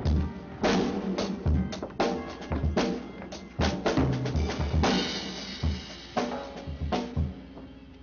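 Drum kit played during a sound check: an irregular run of bass drum and snare hits with fills, stopping about seven seconds in.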